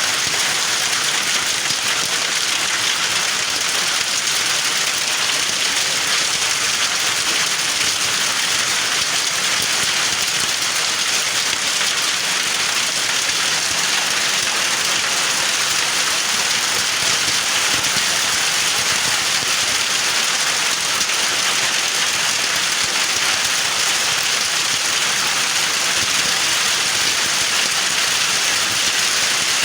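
Heavy hail shower with rain, hailstones pelting down in a dense, steady patter.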